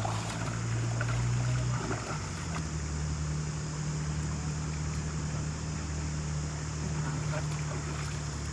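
A small engine running steadily, its pitch shifting down about two seconds in, over a constant hiss of water or wind.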